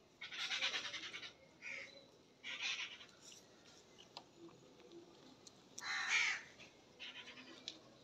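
Harsh, caw-like bird calls in several bursts, loudest near the start and again about six seconds in.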